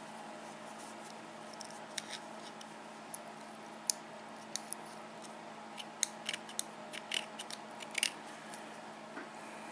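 Irregular small metal clicks and scrapes as a tool works at the retaining clip on the plug of an ABUS 72/40 padlock to get it off.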